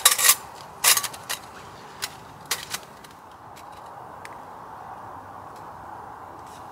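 Metal clinks and clatters of a small folding metal wood stove being set down and fitted together, in a quick run of sharp knocks over the first three seconds, the loudest right at the start. After that it goes quiet apart from a couple of faint ticks as the fire is started.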